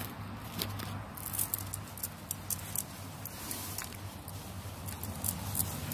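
Gloved hands patting and pressing wet concrete-soaked fabric draped over a planter form, giving irregular light pats and small clicks over a low steady hum.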